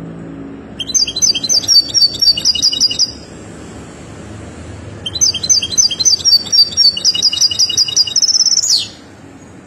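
A song-tutored European goldfinch singing two phrases of rapid, repeated high notes, with a pause between them. The second phrase is longer and ends in a fast trill and a quick downward sweep.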